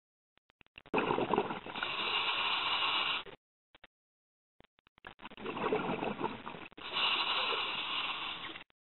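Scuba diver breathing through a regulator underwater: two long breaths about four seconds apart, each a rush of bubbling and hiss lasting two to three seconds.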